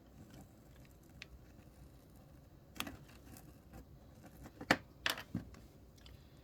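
Light clicks and taps of small pieces being handled during miniature craft work, with two sharper clicks close together a little over halfway through.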